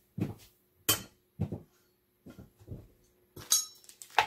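Grey metal tube legs and plastic panels of a compost tumbler kit knocking and clinking against each other as the parts are handled: about seven separate knocks, one about three and a half seconds in ringing briefly like metal.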